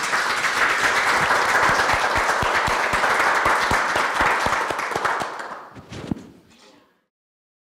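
Audience applauding. The clapping thins out from about five seconds in and stops completely near the end.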